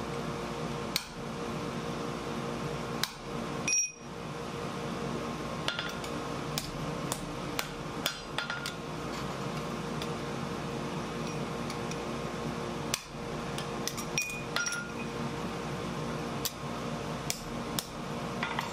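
Scattered, irregular hammer strikes on a round punch and the steel anvil as a hole is punched and drifted through a hot 1/8-inch steel blank, with metallic clinks as tools are set down and short rings after some blows. A steady forge-blower hum runs underneath.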